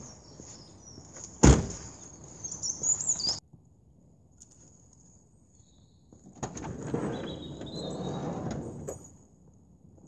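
A Toyota HiAce van door shut once with a sharp knock about a second and a half in, with birds chirping. Later come a few seconds of scraping and rustling.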